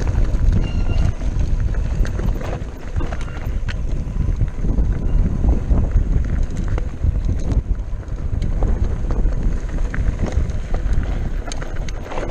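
Wind buffeting the microphone of a camera on a mountain bike riding down a rocky singletrack, with a steady low rumble and frequent clicks and rattles from the bike over stones.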